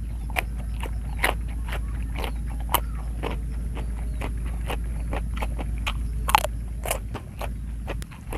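Close-up crunching and chewing of a raw leafy green vegetable stalk, with a crisp crunch every half second to a second and one sharp, louder crunch about six seconds in. A steady low rumble runs underneath.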